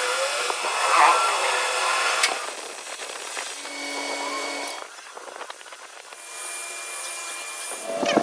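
Power tool working metal, a harsh scraping noise with a few steady tones, in several short stretches that change abruptly.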